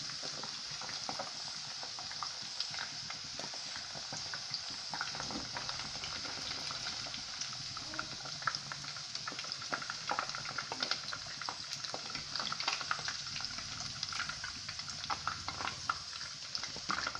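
Hot cooking oil sizzling steadily with frequent small crackles as food fries in a pan.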